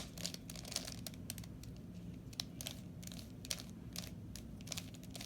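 3x3 Rubik's Cube being turned by hand: quick, irregular plastic clicks as the layers are twisted.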